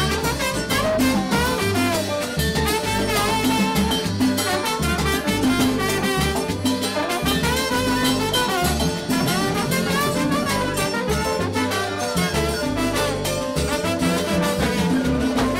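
A live salsa band playing, with violin and trombone over bass and percussion.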